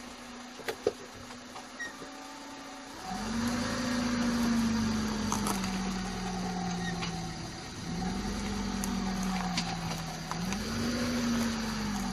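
A vehicle's engine running at a steady low hum, then speeding up and easing off three times as the vehicle is driven over a flashlight, with its pitch rising quickly and falling slowly each time. There are a few sharp clicks near the start.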